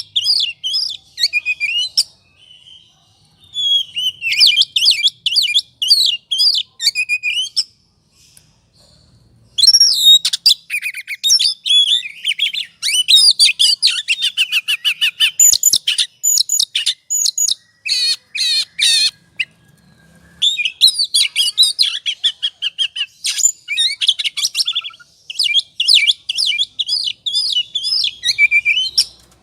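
Oriental magpie-robin (kacer) in its excited 'ngobra' song, a lure for provoking other males: rapid phrases of varied whistles and trills. It breaks off briefly a few times, with a run of harsh rasping notes about two-thirds of the way through.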